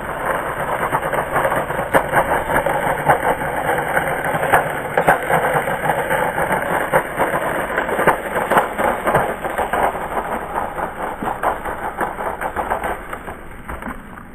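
Skateboard rolling on rough pavement: a continuous gritty wheel rumble with many scattered clicks, fading near the end.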